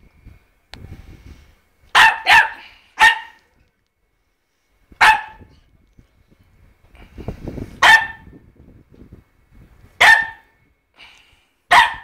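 Brindle boxer dog barking: about seven sharp single barks, unevenly spaced, some in quick pairs, with fainter low scuffling between them.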